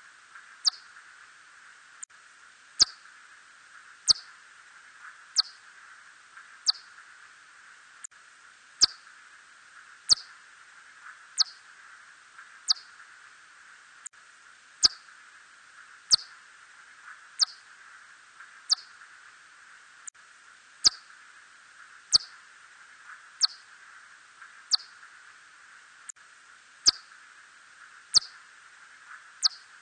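Red bat (Myotis rufoniger) calls: short chirps that each sweep quickly down in pitch, about one every 1.3 seconds in runs of four with a slightly longer pause between runs. Faint clicks fall between the calls, over a steady hiss.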